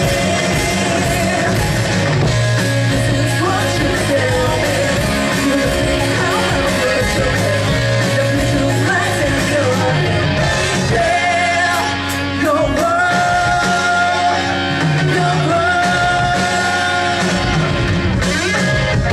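Live rock band playing: a lead vocalist singing over electric guitar, bass and drums, with long held sung notes in the second half.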